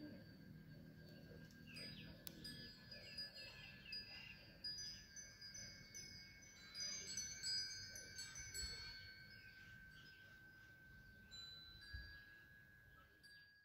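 Wind chimes tinkling faintly: several clear, high ringing notes struck at different moments that overlap and ring on, busiest around the middle.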